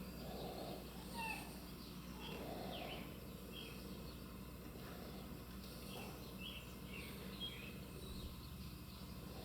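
Birds chirping outdoors: short calls, some sweeping up or down in pitch, about one or two a second, over steady low background noise.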